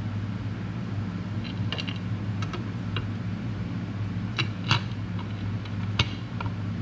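Scattered light metallic clicks and taps as a chrome derby cover is fitted onto a Harley-Davidson primary cover and its screws are started by hand, the sharpest click a little past the middle. A steady low hum runs underneath.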